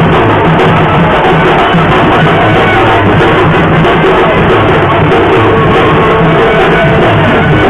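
Loud music.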